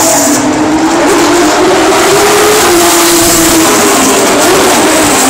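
Race car engines running hard at high revs, loud and continuous, their pitch drifting up and down as cars accelerate and pass.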